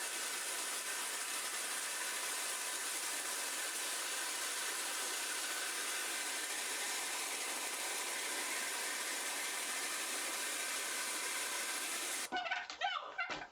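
A loud, steady hiss with no rhythm that cuts off abruptly about twelve seconds in. Short bird calls follow.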